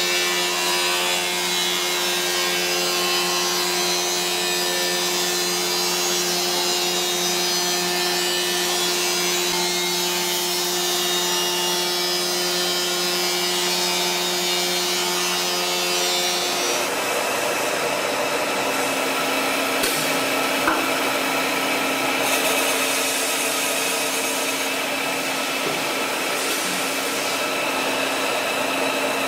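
CNC wood router cutting wood: a steady spindle whine with several held tones over the noise of the cut. The tones change abruptly a little past halfway through.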